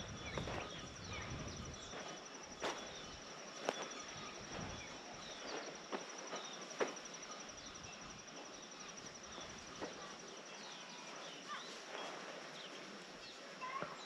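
Savanna ambience: many short bird chirps and calls over a steady high-pitched insect buzz, with a few sharp footstep sounds on the dry, stony riverbed.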